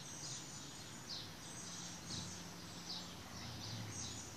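A bird calling over and over, a short high note about once a second, over steady outdoor background hiss.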